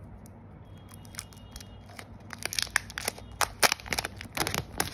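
Thin plastic protective film crackling as it is peeled off a new smartphone, a dense run of sharp crackles starting about two seconds in.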